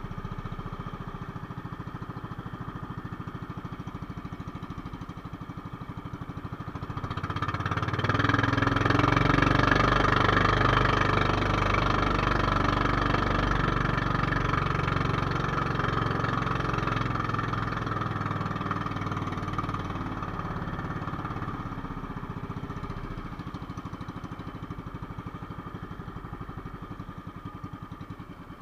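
Small engine of a motorized outrigger boat running steadily under way. It grows louder about seven seconds in, then slowly eases off.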